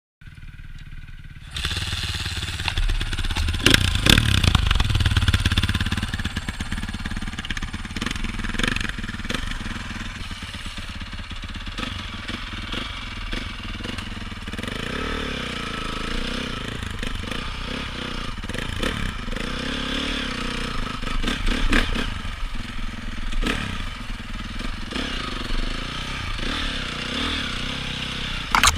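A 2014 Honda CRF450 single-cylinder four-stroke dirt bike is kick-started and catches about a second and a half in. It is revved hard around four seconds in, then runs unevenly with throttle blips as the bike rides off slowly.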